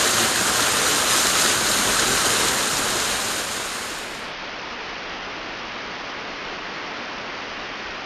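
Steady rush of running water. About four seconds in it drops to a quieter, duller hiss.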